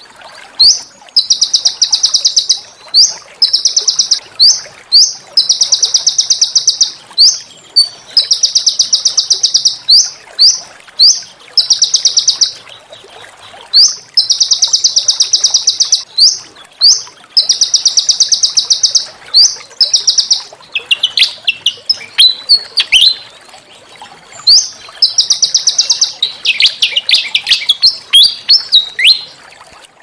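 A small songbird singing loud, high, fast trills, each about a second long, separated by short sharp upward-flicked notes. Between about 21 and 29 seconds in, the song breaks into a run of varied descending notes.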